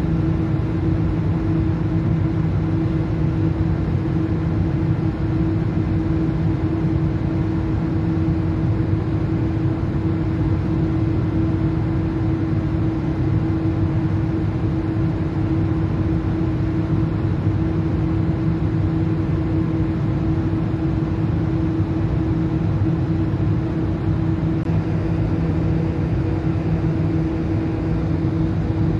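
Ship engines and machinery running with a steady low drone and a constant hum on one pitch.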